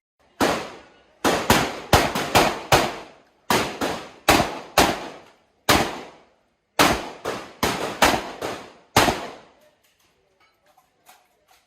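Shotgun firing about nineteen rapid shots in quick strings of two to five, with short pauses between strings, then a few faint clinks near the end.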